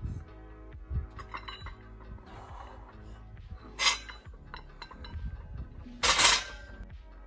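Loaded barbell with bumper plates clinking and rattling on the sleeves as it is lowered from overhead. There are two short bursts of clatter, about four seconds in and, louder, about six seconds in.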